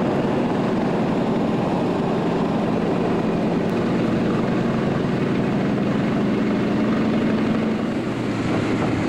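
Small floatplane's piston engine and propeller running steadily, heard from inside the cabin.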